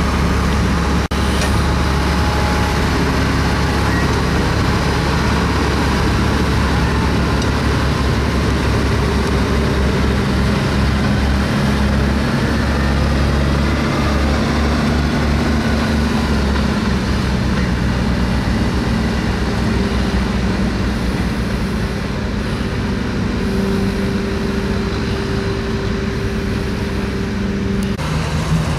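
Vintage tractor engine running steadily under load while ploughing, its pitch drifting slightly, over a heavy low rumble.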